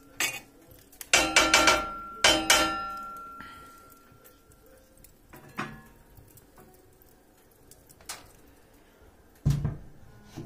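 Steel fireplace tools clanking against each other and their stand. About a second in there is a quick run of metal clanks, one leaving a ringing note, then a few lighter knocks and a dull thud near the end.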